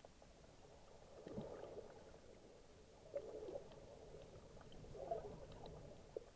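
Faint, muffled underwater water sounds heard through an action camera's waterproof housing: three soft gurgling swishes about two seconds apart, with scattered small clicks.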